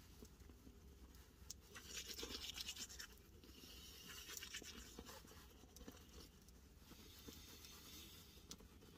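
Faint scrubbing of a toothbrush on teeth: quick back-and-forth strokes that come in spells, loudest about two to three seconds in.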